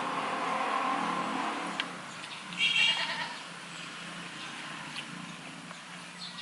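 Goats bleating in hoarse voices: one long drawn-out bleat over the first couple of seconds, then a louder, higher cry about two and a half seconds in.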